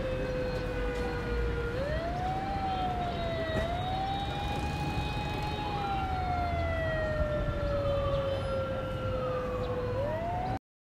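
A siren wailing in slow sweeps: its pitch rises quickly, then falls slowly over a few seconds, about three times, and it cuts off suddenly near the end.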